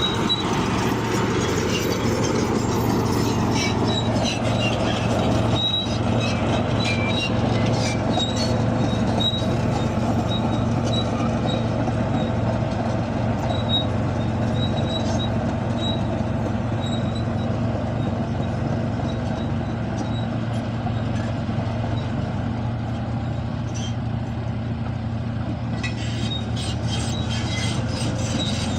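Bulldozer's diesel engine running steadily, with the steel tracks giving off short high squeaks and clinks, more of them in the first half and again near the end.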